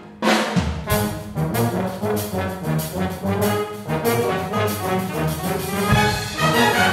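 A wind band playing a Latin-style piece, with the brass section, trombones and trumpets, to the fore over percussion. The band cuts off for a moment at the start, then comes back in on a sharp attack and carries on with short, rhythmic accented chords and low drum hits near the end.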